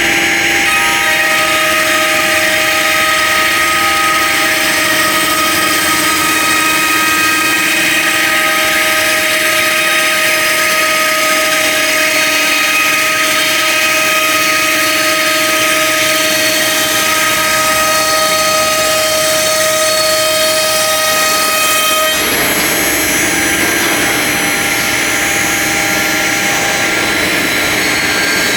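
CNC router spindle running steadily, a held whine of several steady tones over a loud hiss. The whine changes and partly drops away about three quarters of the way through.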